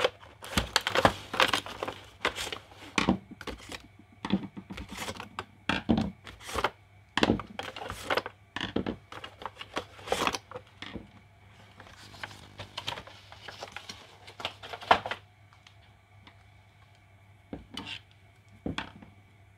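Packaging rustling and crinkling as a Wiha strike-cap screwdriver set is unboxed, with irregular clicks and knocks as the screwdrivers are pulled from their plastic tray and set down on a cutting mat. The handling eases off about 15 seconds in, leaving a few light taps.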